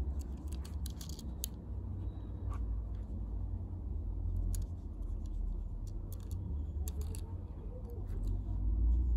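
Fingers handling and turning a small die-cast toy car close to the microphone: scattered light clicks and scratches over a low rumble of handling noise.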